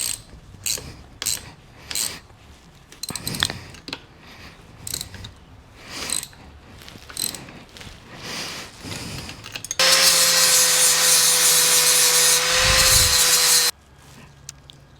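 A hand tool clicking in a string of short ratcheting strokes, about one every two-thirds of a second, then a motorised tool running steadily with a whine for about four seconds before cutting off suddenly.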